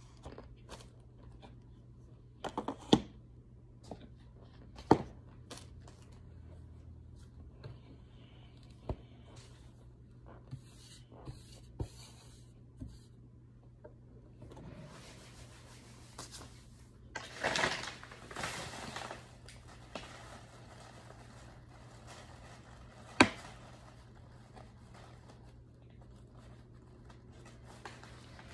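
Handling noises from hard white chalk chunks, a plastic cup of powder with a spoon and a plastic bag: scattered sharp clicks and taps, with longer scraping, crumbling bursts about halfway through and again a little later.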